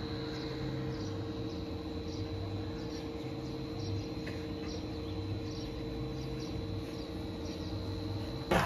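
Short, high, falling chirps repeating about twice a second over a steady hum and a faint constant high whine.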